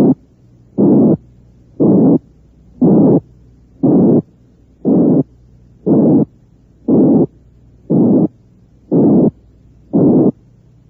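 Synthesized heart murmur made from a band of frequencies between 180 and 460 cycles: a short harsh hiss repeated about once a second. It imitates the harsh murmur associated with aortic and pulmonary stenosis.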